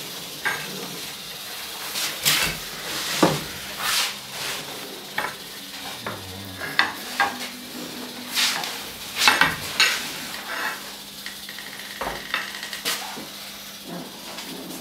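Irregular knocks and scrapes of a metal snake hook against a glass terrarium and its frame as a king cobra is drawn out onto the floor.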